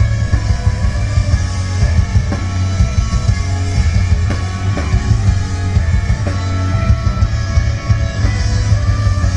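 Rock band playing live at a sound check, loud, with guitars, a drum kit and heavy bass.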